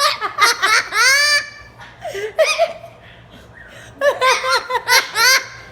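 Amazon parrot laughing: runs of high, rising-and-falling hoots, one in the first second and a half, a short one midway and another about four seconds in.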